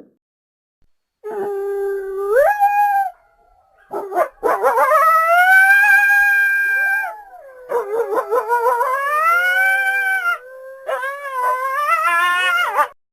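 Coyote howls pitched slightly down, used as a made-up chupacabra call: four long howls, the first jumping up in pitch partway, the second rising and then held for about three seconds, the last two wavering.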